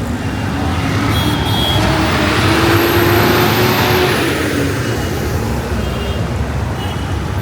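Busy street traffic, with a motor vehicle passing close by: its engine and tyre noise swells to a peak a little before the middle and then fades back into the steady traffic rumble.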